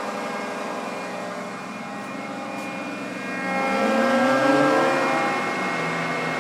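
Binns & Berry Data 90 CNC lathe spindle drive running quietly in high range with a steady whine of several tones. About three seconds in the whine rises in pitch and gets louder as the spindle speeds up from 300 toward 500 RPM, then settles at a higher steady pitch near the end.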